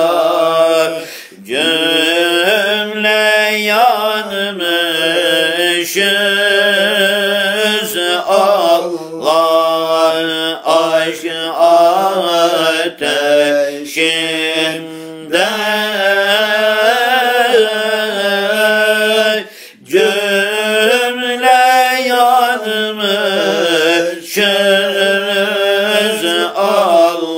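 Sufi dhikr chant: voice chanting a devotional hymn in long held, slowly bending notes, broken by short pauses about a second in and again around two-thirds of the way through.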